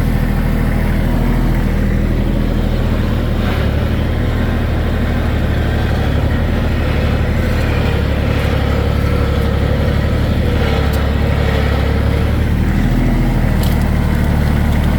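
Tractor engine running steadily as the tractor drives. The engine note shifts a little about three and a half seconds in and again near the end.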